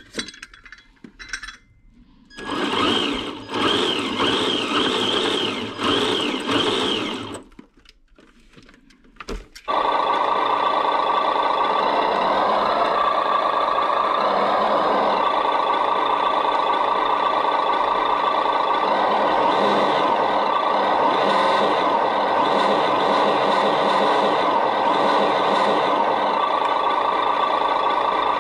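An RC Humvee's electronic sound module playing a simulated truck engine idling through its small speaker. It starts suddenly about ten seconds in and runs steadily. A few seconds of a separate warbling sound come earlier.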